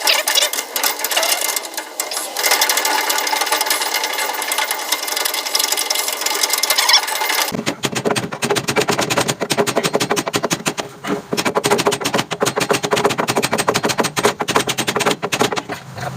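Rapid, even mechanical clatter with many fast strikes, changing abruptly about halfway through.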